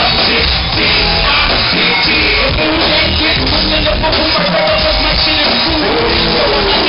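Live hip-hop band playing loud through a PA, with several vocalists singing held, wavering lines into microphones over the drums and bass.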